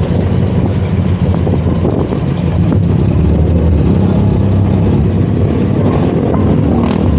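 Benelli TRK 502 X's parallel-twin engine running as the motorcycle rides along, a steady low engine note with road and wind noise, getting a little louder about two and a half seconds in.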